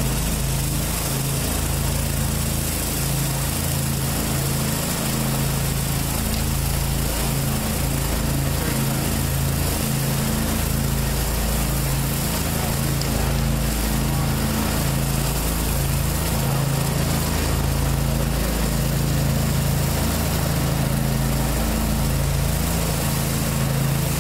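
Gas-powered pressure washer engine running steadily under load, with the even hiss of water spraying from a rotary surface cleaner onto concrete.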